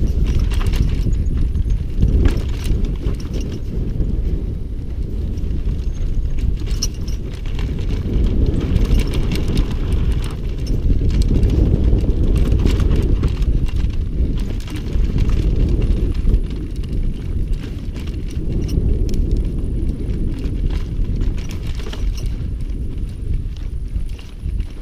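Mountain bike rolling fast down a bumpy dirt and grass trail: a steady low rumble with many quick knocks and rattles as the wheels hit bumps.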